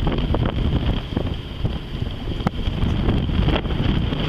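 Wind buffeting the microphone on a sailing yacht under way, a loud, gusting low rumble, with a couple of sharp clicks about two and a half and three and a half seconds in.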